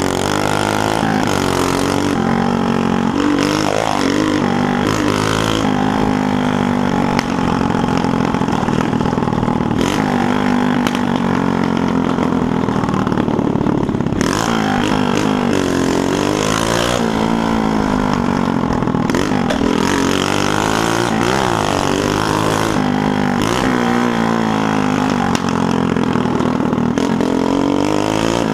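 Small motorcycle engine running loud as it is ridden, its pitch rising and falling again and again as the rider opens and closes the throttle and shifts through the gears.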